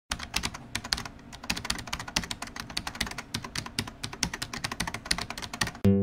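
Rapid, irregular keyboard typing clicks, several a second. Just before the end an acoustic guitar is strummed.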